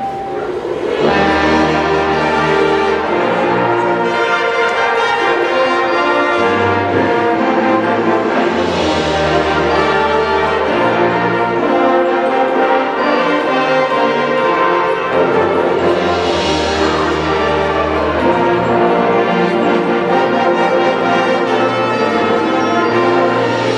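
High school marching band playing its show: loud brass in sustained chords over long, held low brass notes that change every second or few.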